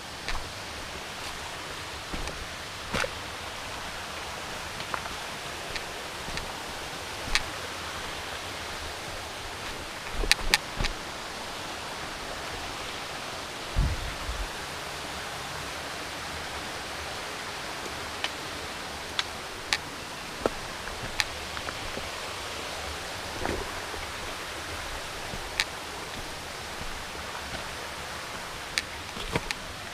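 Steady rushing outdoor noise with scattered sharp clicks and a few dull knocks, the loudest knocks about ten to fourteen seconds in.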